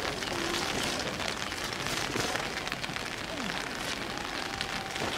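Steady hiss of rain falling outdoors, with wet pattering.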